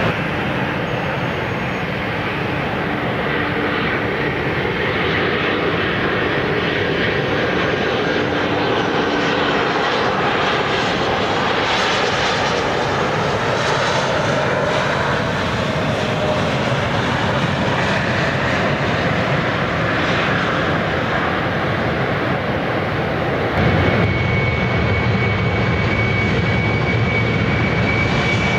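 Embraer regional jets' turbofan engines running at close range, a steady jet roar. Near the end it cuts to another jet with a stronger low rumble and a steady high-pitched engine whine.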